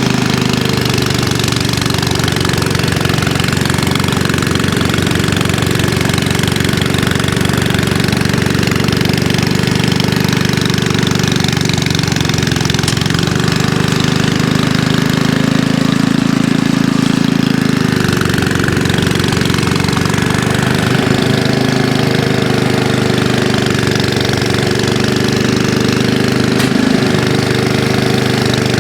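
Ariens Classic 24-inch two-stage snow thrower running steadily under load while clearing heavy wet snow, its single-cylinder engine note shifting a little around the middle as the load changes.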